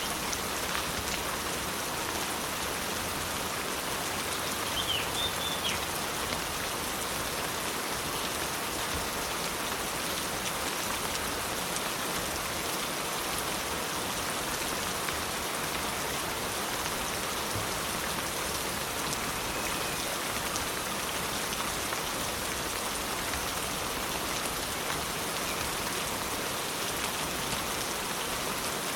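Steady rain falling, an even patter of drops with no change in intensity. A brief high chirp cuts through about five seconds in.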